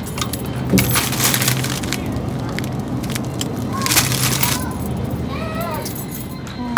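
Two short bursts of crackling rustle, about a second in and again about four seconds in, over a steady low hum; a brief voice near the end.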